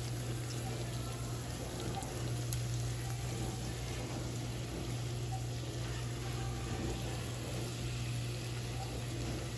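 Fish fillets sizzling steadily in hot butter and oil in a cast-iron skillet as they are turned over with tongs, over a constant low hum.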